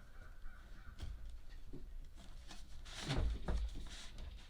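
Plastic blower parts being handled, with scattered light rustling and a louder knock and rub about three seconds in.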